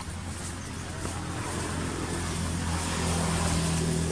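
An engine running with a steady low hum that grows louder over the second half, over a constant background hiss.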